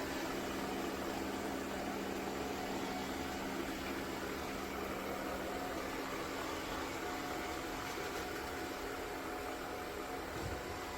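Ecovacs Deebot X9 Pro Omni robot vacuum-mop running: a steady motor and fan whir with a constant low hum.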